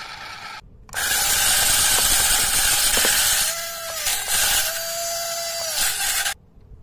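Small electric motor and plastic gearbox of a walking monkey toy running hard, overdriven at 27 volts: a loud whirring gear clatter. It drops out briefly under a second in, a steady whine comes in twice in the middle, and the motor cuts off suddenly near the end.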